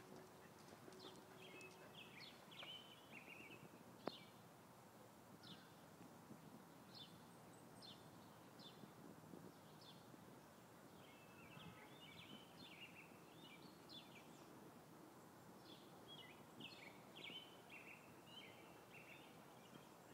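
Faint songbird chirping: bursts of quick, high notes every few seconds, with single notes between. A single sharp click about four seconds in.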